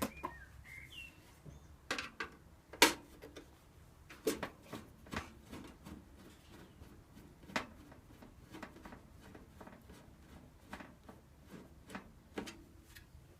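Scattered clicks and knocks of computer parts being handled and pulled from an old desktop PC case, the sharpest knock about three seconds in.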